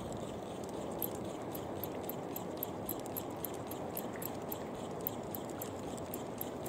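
Small Fugu Eiji 1000 spinning reel being cranked on a lure retrieve, ticking evenly about three to four times a second, over a steady wash of wind and lapping shallow sea.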